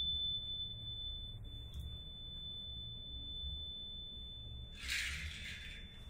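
A steady high-pitched pure tone, held level, with a faint low rumble beneath it. A short burst of hiss comes about five seconds in, and the tone stops soon after.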